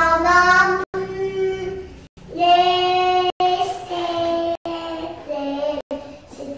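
A child singing, holding long sung notes, with the sound cutting out for an instant several times.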